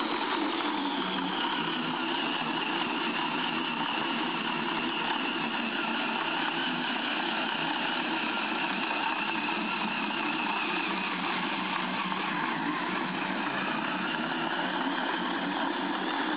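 Wooden slat-style dog treadmill running steadily under a running dog: a continuous, even mechanical running noise.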